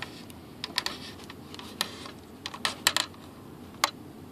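A fiberglass model glider fuselage being handled, giving sharp, irregular clicks and taps, about seven in all, with light rustling in between.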